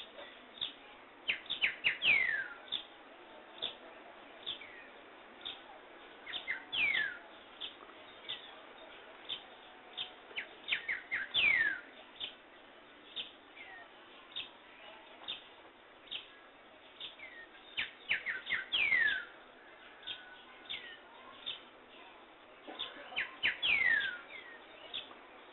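Birds singing: a steady run of short high chirps, and every few seconds a quick burst of notes ending in a falling whistle, over a faint even hiss.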